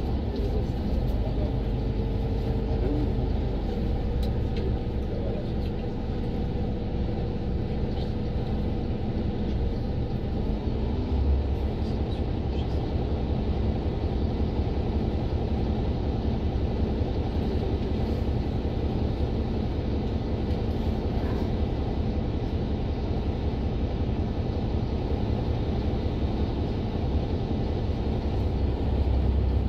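City bus running along the road: a steady low engine drone with road rumble, heard from inside the bus.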